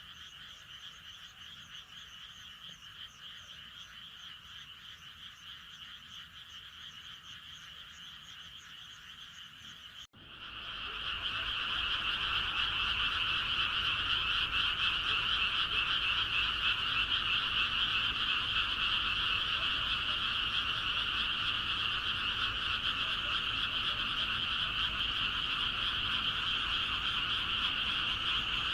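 A chorus of many frogs calling continuously, faint at first. About ten seconds in, it cuts abruptly to a louder, denser frog chorus that carries on steadily.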